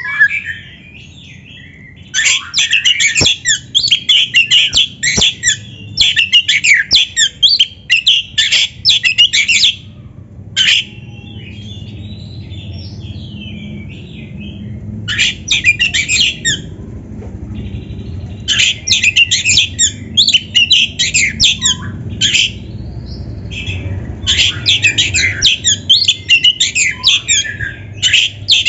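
Oriental magpie-robin (kacer) in full song: loud bouts of rapid, varied chattering phrases of a few seconds each, separated by pauses, with a longer pause in the middle.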